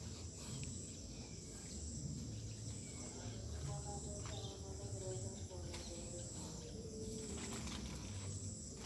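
Insects shrilling steadily in a high, even pitch over a faint low rumble.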